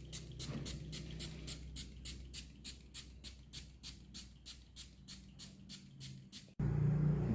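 Background music with a steady ticking beat, about four ticks a second, over low sustained tones; it cuts off suddenly near the end and gives way to a louder low hum.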